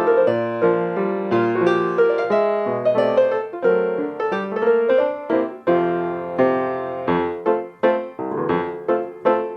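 Solo piano music: struck notes and chords in a steady, quick rhythm.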